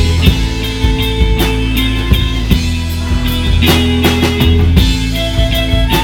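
Live band playing a rock-style number with fiddle, acoustic guitar and drum kit: held fiddle notes over strummed guitar, a heavy low end and steady drum hits.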